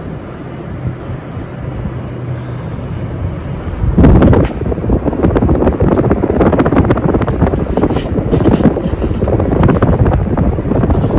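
Air from a running ceiling fan buffeting the microphone: a low hum, then from about four seconds in a loud, gusting rush with crackles.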